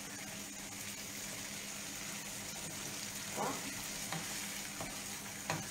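Tomato sauce with salmon and zucchini simmering in a frying pan, a steady sizzle. A few light clicks sound in the second half.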